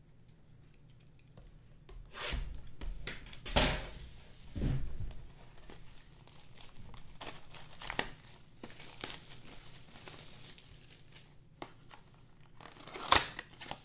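A box of 2019 Score trading cards being torn open: wrapping and cardboard tearing and crinkling in irregular bursts, with sharp loud rips about two seconds in, near four seconds, and again near the end.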